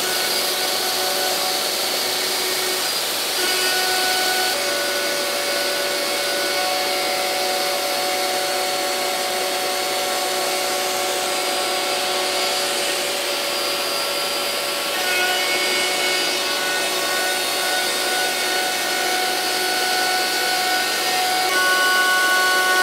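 DeWalt compact router spindle on an X-Carve CNC machine, running steadily while it cuts slots into a wooden board, with a dust extractor running through the attached hose. The whine steps in pitch and level a few times as the cut goes on.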